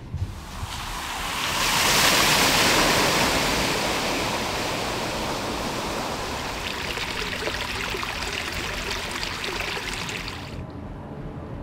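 Floodwater rushing and splashing in a steady hiss. It swells over the first couple of seconds, holds, and cuts off abruptly near the end.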